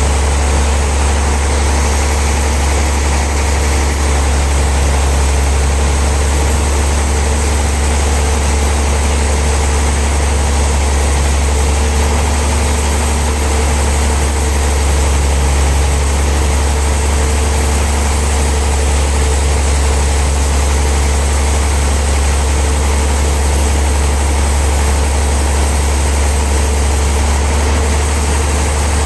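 Sawmill machinery running steadily: a constant low engine drone that does not change in pitch or loudness.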